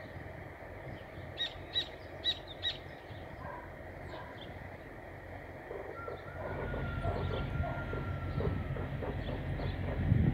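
A bird gives four short harsh calls in quick succession, about a second and a half in. Later a low rumble builds, with a faint steady tone for a few seconds.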